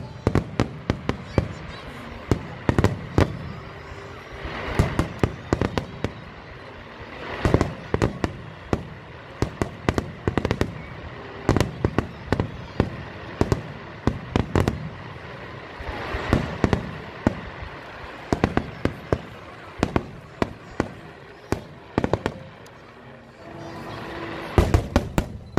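Fireworks display: aerial shells bursting in rapid succession, a dense string of sharp bangs and crackles that never lets up, with the loudest cluster near the end.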